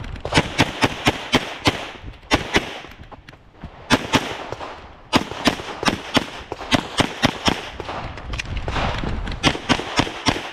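Springfield Prodigy pistol firing fast strings of shots, mostly in quick pairs about a third of a second apart, with two short breaks a few seconds in.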